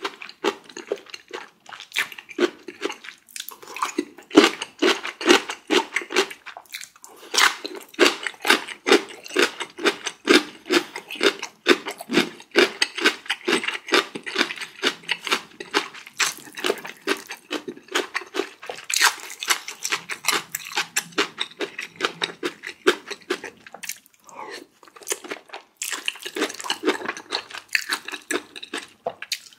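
Close-miked eating: rapid wet chewing and mouth smacking in quick runs of clicks, broken by a few short pauses.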